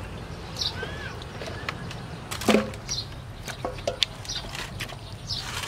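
Raw chicken drumsticks being handled in metal basins: scattered knocks and clatter of meat against aluminium, loudest about halfway through.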